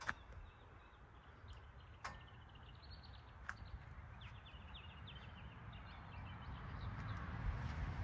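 Faint outdoor ambience: birds chirping in short quick runs, a few sharp taps like footsteps on pavement, and a low rumble that grows louder toward the end.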